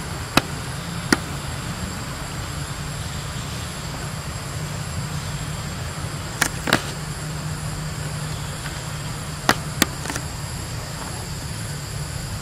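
Steady outdoor background noise with a low rumble and a faint high whine. It is broken by a few short, sharp clicks: two singles early, then two quick pairs.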